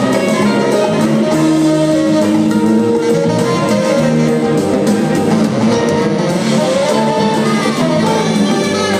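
Live jazz-funk band playing, with drum kit, congas, electric bass and horns, the horns holding long notes.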